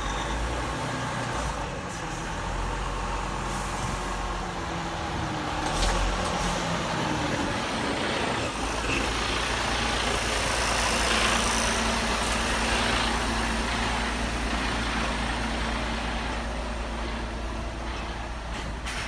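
Truck engine running. Its pitch shifts during the first eight seconds or so, then it settles into a steady low drone.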